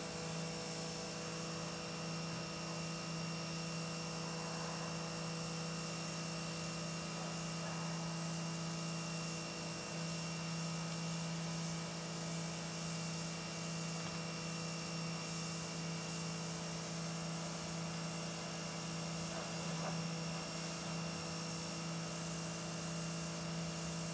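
A steady low hum with a constant pitch, like a motor or electrical equipment running, unchanging throughout.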